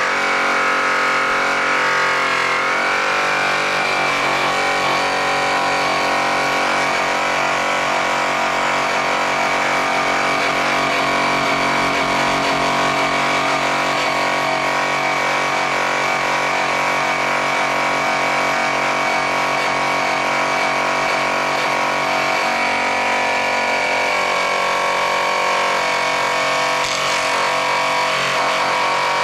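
DeWalt DWP849X variable-speed rotary polisher running a yellow airway cutting wheel loaded with rouge against a metal car wheel, in the first cutting stage: a steady motor whine whose pitch shifts a few times.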